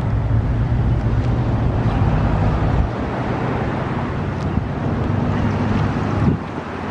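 Federal Sign & Signal STH-10A siren winding down in its long, low growl as the rotor coasts after the test, with wind buffeting the microphone. The low rumble drops away near the end.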